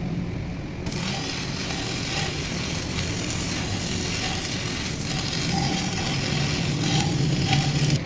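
Steady machine noise with a constant low hum, with a few sharp clicks.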